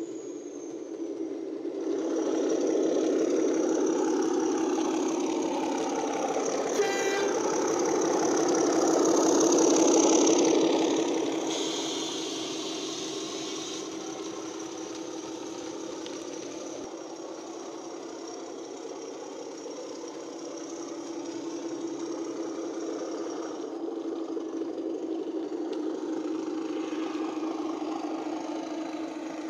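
ESU LokSound Hifi sound decoder playing a Class 31 diesel locomotive's engine through the model's small speaker: a steady engine drone that swells as the loco passes close by around ten seconds in, fades as it draws away, and grows again near the end as it comes back. A short horn toot about seven seconds in.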